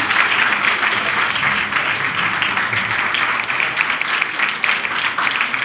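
A roomful of people applauding, steady dense clapping throughout.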